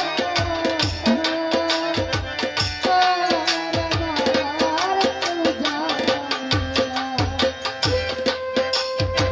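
Baul folk band playing: a fast run of hand-drum strokes under a gliding melody line, which settles onto one long held note near the end.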